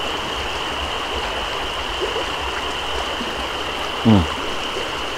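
Creek water running in a steady, even rush. About four seconds in, a man makes a brief low vocal sound that falls in pitch.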